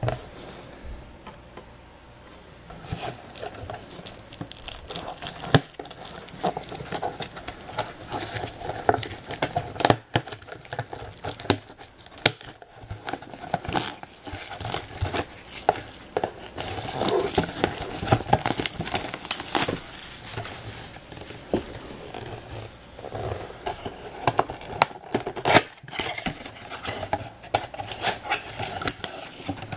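Plastic shrink-wrap being torn and crumpled off a cardboard trading-card box, an uneven run of crackles and crinkles; near the end the box's cardboard top flap is pulled open.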